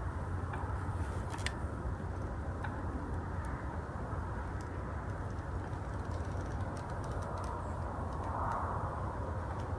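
Steady low outdoor rumble, with a few faint clicks scattered through it.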